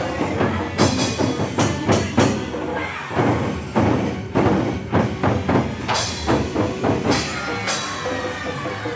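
Taiko drums beaten by several drummers in a driving rhythm of sharp strikes, over loud backing music.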